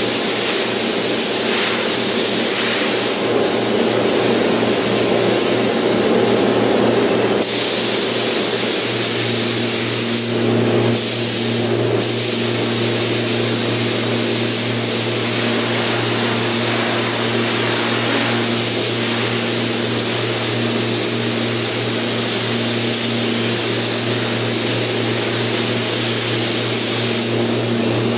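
Air-fed paint spray gun hissing steadily as clear coat is sprayed, the hiss dipping briefly now and then as the trigger is eased, over a steady low hum.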